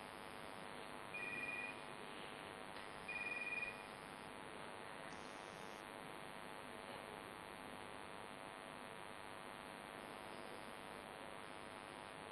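Two short electronic beeps about two seconds apart, each a pair of high steady tones sounding together, over a faint steady hum and hiss.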